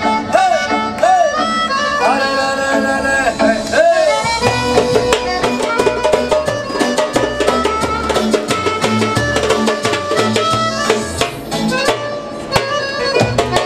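Live busking music: a goblet drum (darbuka) struck by hand under a wavering lead melody, over a backing track from a portable speaker. A heavy bass beat comes in about four seconds in.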